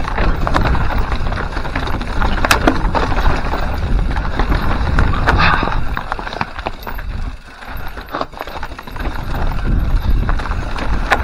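Mountain bike rattling and clattering down a rocky trail, with sharp clacks as the wheels hit rocks and wind rumbling on the microphone. The noise dips briefly about seven seconds in.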